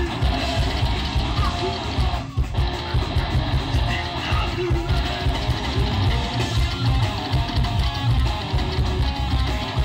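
Live psychobilly band playing: electric guitar over an upright double bass and drum kit, with a heavy pulsing low end. The sound briefly drops out for a moment about two and a half seconds in, then the band carries on.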